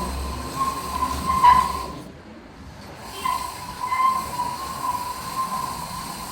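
Small DC electric motor of a homemade remote-control toy truck running with a steady whine over a hiss, stopping for about a second around two seconds in, then starting again.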